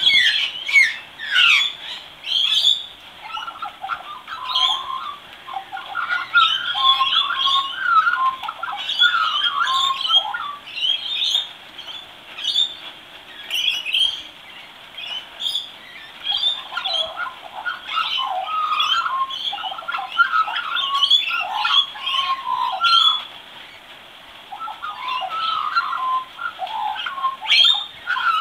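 Young Australian magpie practising its song: a rambling, continuous run of varied warbles, chortles and gliding whistled notes, broken by a few brief pauses.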